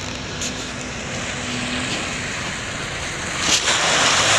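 Jeep Wrangler engine running as it drives across grass. About three and a half seconds in, a louder rush of tyres splashing and spraying through mud and water.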